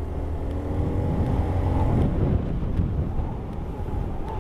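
Small Honda scooter engine pulling away and picking up speed, its note rising over the first couple of seconds and then holding steady, with wind and road rumble on the handlebar-mounted camera's microphone.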